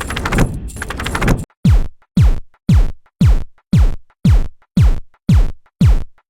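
Electronic sound effects: a dense, noisy rattling texture for about a second and a half, then a steady run of deep synthesized booms like an electronic kick drum, about two a second, each a quick drop in pitch into the bass.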